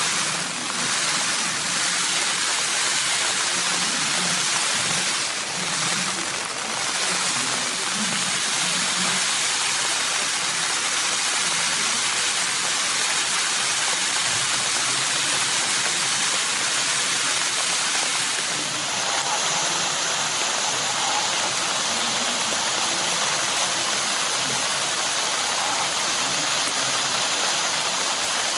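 Heavy rain falling steadily, a dense continuous hiss. The hiss turns brighter about two-thirds of the way through.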